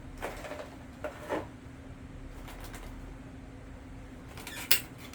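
Hard plastic parts of an electric fan being handled and fitted together during a capacitor repair: a few short rattling clicks early on and one sharp snap near the end, over a steady low hum.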